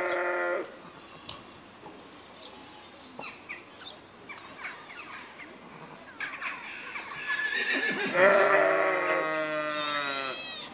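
Sheep bleating. One bleat ends about half a second in, then after a quieter stretch comes a long, wavering bleat that lasts several seconds and is loudest near the end.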